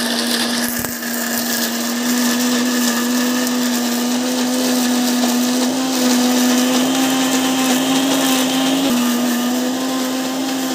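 Electric mixer grinder running at full speed, grinding sautéed coconut, onion, dried chillies and tamarind into chutney. It starts suddenly and hums steadily, the pitch creeping slightly upward with a brief dip about nine seconds in.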